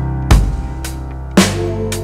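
Background music: an electronic track with a heavy bass drum hitting about once a second over a deep, sustained bass.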